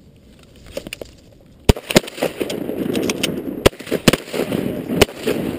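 Shotguns firing a quick volley: about six sharp shots between about two and five seconds in, the first the loudest.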